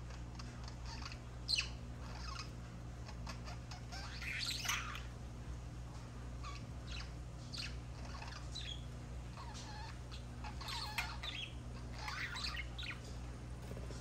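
Budgerigars chirping and warbling in short, scattered calls, a few louder ones standing out, over a steady low hum.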